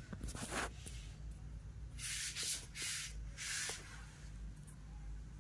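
Three short rubbing scrapes, about two, three and three and a half seconds in, over a faint low hum.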